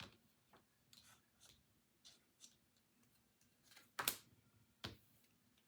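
Near silence broken by faint rustles and small clicks of tarot cards being handled. There are two louder brief sounds about four and five seconds in.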